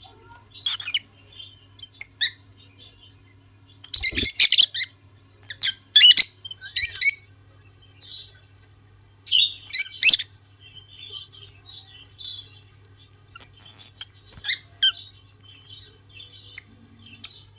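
A pair of lutino lovebirds giving shrill, piercing squawks in short clusters, with soft twittering chatter between them.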